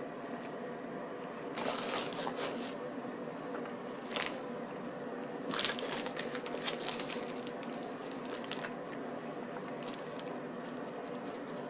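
A person eating a toasted baguette sandwich: chewing with bursts of crackling and crinkling from the crusty bread and its wrapper, in clusters about two, four and six seconds in. A steady low hum runs underneath.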